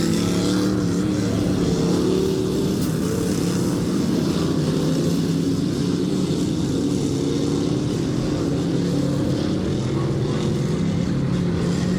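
Several dirt-track race cars' engines running together around the oval, a steady drone with little change in pitch.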